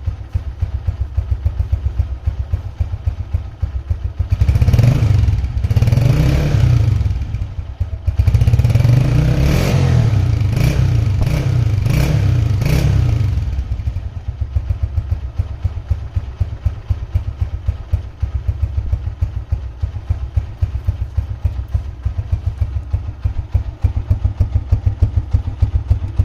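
Honda CG 125 single-cylinder four-stroke engine idling with a quick, even exhaust beat through its silencer. It is revved about four seconds in, then blipped several times in a row from about eight seconds, and settles back to idle.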